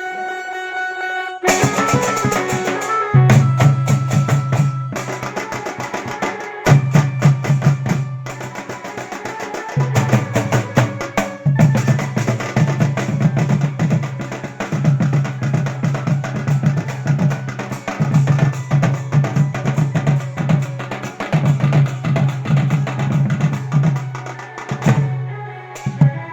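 A live band playing a loud, drum-heavy instrumental. It opens with a held keyboard-like note, then dense drumming over a strong low bass beat that comes in phrases of a few seconds each.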